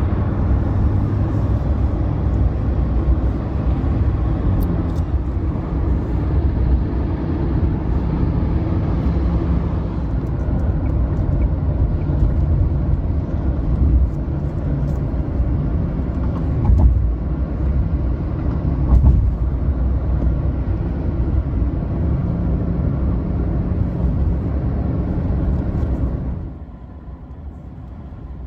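Steady low rumble of a motor vehicle driving, heard as road and engine noise, which drops away sharply near the end.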